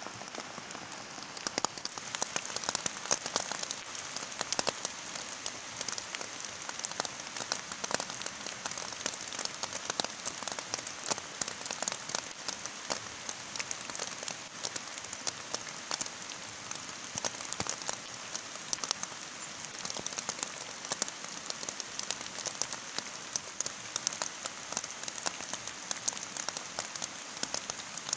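Heavy rain falling steadily, with many close drops pattering and ticking on a surface.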